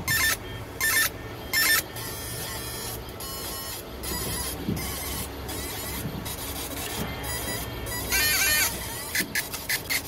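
Laser marking machine printing onto a closed bird ring held in its rotary chuck. A steady low hum runs under short bursts of high-pitched buzzing and hiss. The longest and loudest burst is a warbling buzz about eight seconds in.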